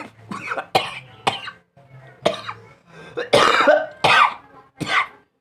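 A man coughing repeatedly, about eight hard coughs in quick succession with a longer drawn-out one in the middle; a cough the uploader puts down to smoking.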